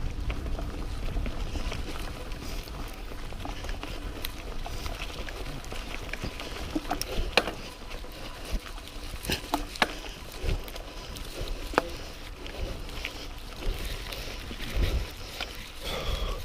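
Mountain bike rolling along a dirt trail: a steady low rumble of tyres and wind, broken by scattered sharp clicks and rattles from the bike.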